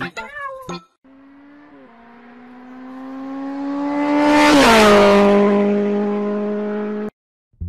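Race car pass-by sound effect: an engine note swells louder, drops in pitch as the car goes past about four and a half seconds in, then cuts off abruptly near the end.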